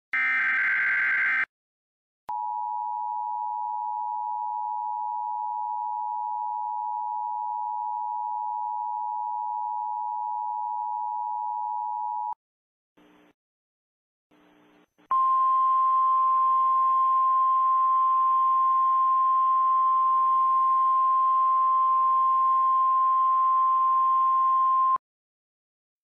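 Emergency Alert System tones: the tail of a SAME digital data burst buzzes for about a second. After a short gap, the two-pitch EAS attention signal sounds steadily for about ten seconds. A few faint blips follow, then the single steady tone of a NOAA Weather Radio alert, slightly higher in pitch, with hiss beneath it, runs for about ten seconds and cuts off suddenly.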